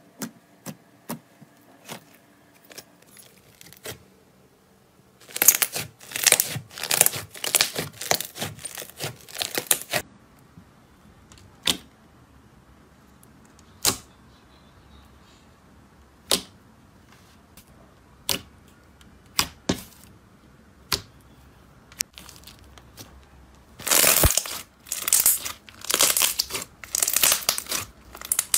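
Slime being pressed and squeezed by hand, giving sharp pops and crackles. Two long runs of rapid crackling, one in the first third and one near the end, with single pops spaced out between them.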